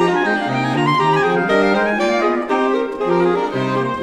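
Saxophone quartet (soprano, alto, tenor and baritone saxophones) with harp playing, several sustained lines moving together in chords over a baritone bass line that changes note about once a second.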